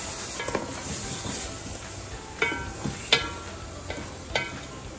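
Wooden spoon stirring beef and spice paste in a sizzling aluminium cooking pot, with three sharp knocks of the spoon against the pot in the second half that ring briefly.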